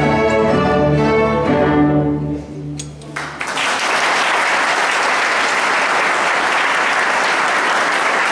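A string orchestra plays its closing bars, ending on a low held chord that dies away about three seconds in. The audience then breaks into steady applause.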